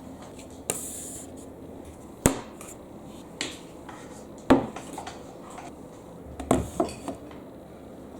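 Glass marbles rolling down a HABA wooden wavy-slope marble run: a low rolling rumble broken by sharp clacks every second or so, with a quick cluster of three clacks near the end.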